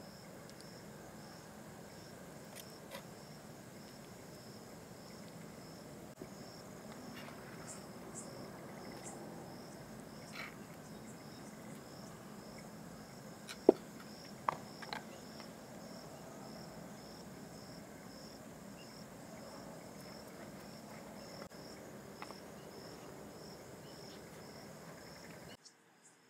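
Insects chirping steadily in an even, repeating pulse, with a few sharp clinks of a steel serving spoon against a steel thali plate, the loudest about halfway through. The sound drops out abruptly near the end.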